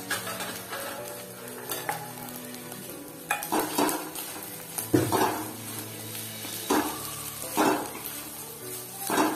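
A spatula stirring and scraping fish roe and potato as they fry and sizzle in a nonstick kadai on a medium gas flame. There is a string of scraping strokes, with several louder ones from about three seconds in.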